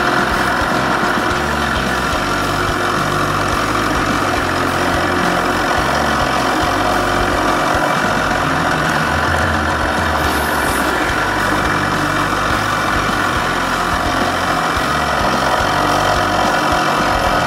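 Wood lathe running steadily, spinning an acrylic duck call insert while it is wet-sanded by hand.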